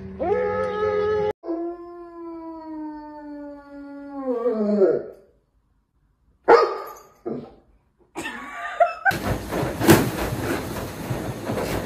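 A dog howling: two long, steady howls, the second sliding down in pitch as it fades, then a few short, loud yelps. From about nine seconds in, a rattling, scraping noise with sharp knocks takes over.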